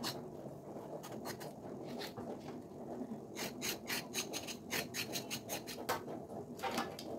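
A blade scraping the ridged skin of a ridge gourd in irregular runs of quick rasping strokes, with short pauses between the runs.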